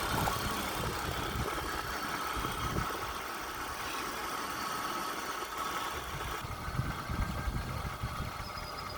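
Toyota Sienna's 3.5-liter V6 idling steadily on a freshly installed alternator, with no grinding from the alternator: the new unit runs quietly and the charging fault is cured.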